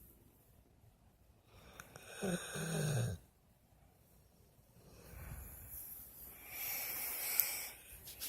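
Sleeping dog snoring, two breaths: a short low-pitched snore about two seconds in, then a longer, breathier, hissing one from about five seconds on.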